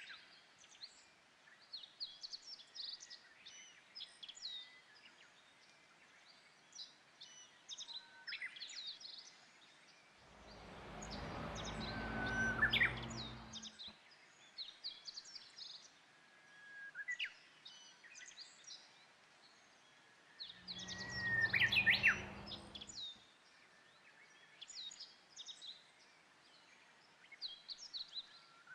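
Japanese bush warbler (Horornis diphone) singing its hō-hokekyo territorial song twice, each song swelling to a loud peak, about ten seconds apart. Short high chirps of other small birds run throughout.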